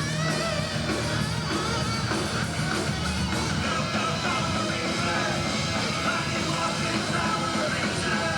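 Rock music with a singing voice, playing steadily.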